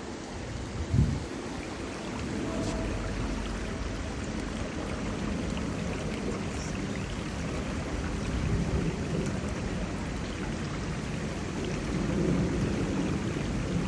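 Running water splashing steadily, with a deep rumble underneath and a brief low bump about a second in.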